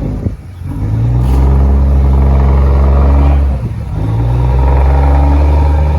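A fishing boat's loud, low, steady drone in two long spells of about three seconds each, with a short break between them.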